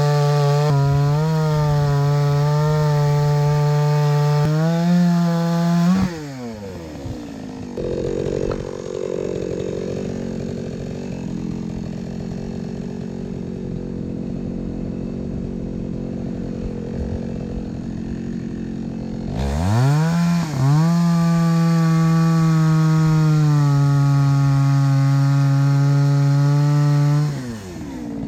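Two-stroke chainsaw running at full throttle, dropping sharply to idle about six seconds in, idling for about thirteen seconds, then revving back up to full throttle for about eight seconds before falling back near the end.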